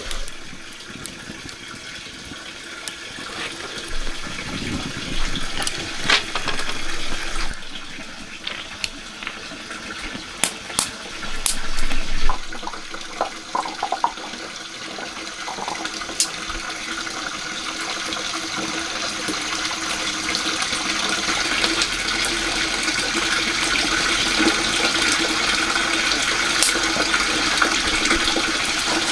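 Water running and splashing into a container, growing steadily louder over the last ten seconds, with a few brief knocks early on.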